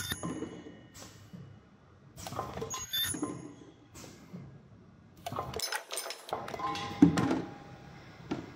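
Automatic tube filling and sealing machine running: clusters of metallic clicks and clunks from its indexing turntable and trimming station, coming about every two and a half seconds, with the loudest clunk near the end.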